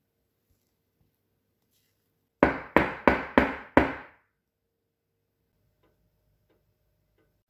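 Round cake pan full of batter banged down on the counter five times in quick succession, about three knocks a second, to knock the air bubbles out of the batter before baking.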